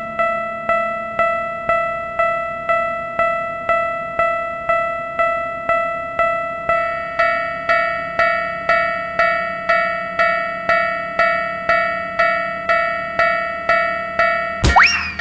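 Japanese railroad-crossing alarm bell ringing its 'kan-kan' in a steady beat of about three strikes a second. About halfway through, a second, higher-pitched bell joins in. Near the end, a click and a quick rising whistle-like sound effect are the loudest moment.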